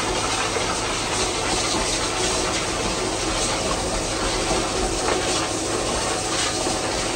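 High-pressure water jet from a sewer-jetting nozzle spraying and splashing into the standing water of a manhole chamber, a steady hiss and splatter over a continuous low machine drone from the vacuum truck.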